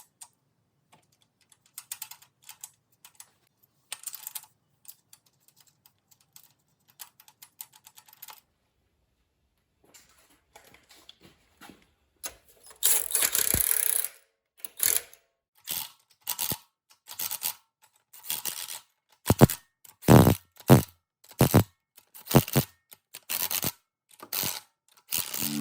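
Hand tools at work on an engine: scattered small metallic clicks and taps, then louder short rasping bursts in the second half.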